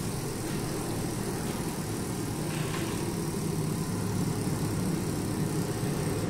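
Amplified bicycle wheel spun by hand, giving a steady, low, engine-like mechanical drone.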